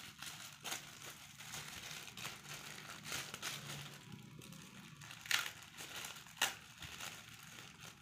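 Thin clear plastic bag crinkling and rustling in the hands as it is worked open, with a few sharper crackles, the loudest about five and six and a half seconds in.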